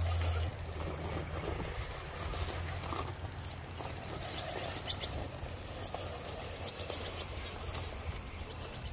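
1/10-scale RC rock crawler on an Injora full metal chassis, its electric motor and forward-mounted gearbox running as it climbs over rock, with scattered small clicks and scrapes from the tyres and chassis on the stone.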